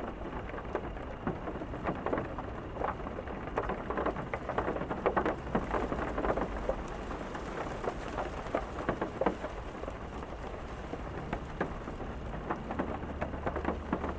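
Steady rain, with many separate heavy drops striking a hard surface close by, over a constant low rumble.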